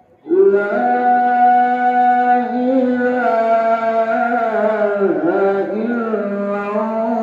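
Maghrib (evening) call to prayer, the adhan, sung by a muezzin and carried over loudspeakers. After a brief pause a long melismatic phrase begins about a third of a second in and is held, its pitch wavering and dipping about five seconds in.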